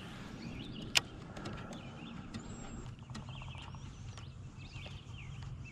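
Birds chirping in short, curling phrases, with a low steady hum underneath and one sharp click about a second in.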